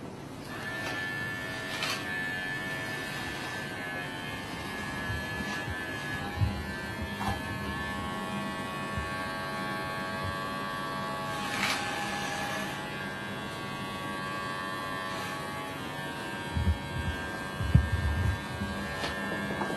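Cordless electric hair clipper buzzing steadily as it cuts hair, its pitch shifting slightly now and then, with a few dull knocks near the end.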